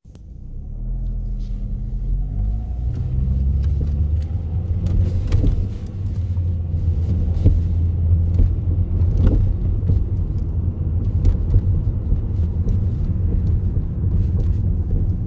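Car engine and road rumble heard from inside the cabin of a moving Hyundai, the engine note rising over the first few seconds as it accelerates, then running steadily. Scattered clicks and knocks sound throughout.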